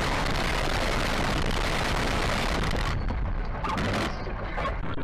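Loud, steady rushing and rumbling noise of a heavy vehicle driving, heard inside its cab. About three seconds in the hiss thins out and a few short knocks follow.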